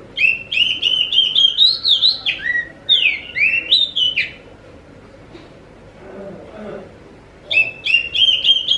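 Oriental magpie-robin (kacer) singing: a fast run of whistled notes and sweeps for about four seconds, then a pause, and a second phrase starting near the end.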